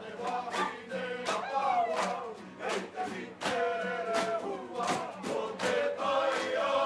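A group of women singing a Māori waiata poi together, with the sharp rhythmic slaps of poi balls struck against hands and arms keeping the beat a few times a second.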